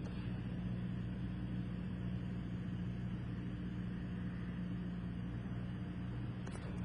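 Cessna 172SP Skyhawk's four-cylinder Lycoming IO-360 engine and propeller droning steadily, heard in the cockpit in level flight in the airport traffic pattern. A faint click comes near the end.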